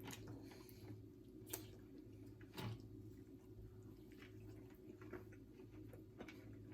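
Near silence with faint eating sounds: a few soft clicks and smacks from someone eating ribs, over a steady low hum.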